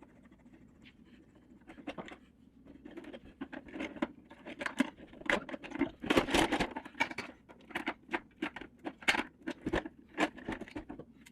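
Irregular clicks, taps and scrapes of a tool and hands working on the plastic parts of a Pentair Kreepy Krauly Racer pool cleaner, getting busier from about two seconds in, as the flat nut under the wheel cover is worked loose.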